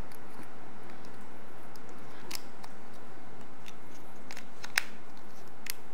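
A few scattered small clicks from handling a baitcasting reel and its spool, over a steady hiss.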